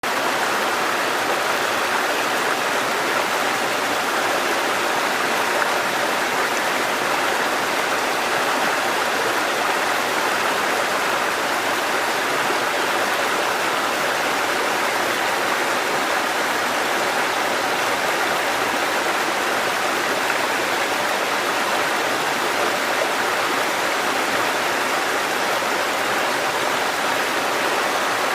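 River water rushing steadily over shallow rapids, a constant even rush with no breaks.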